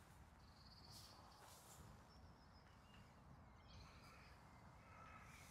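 Near silence, with a few faint bird chirps in the distance.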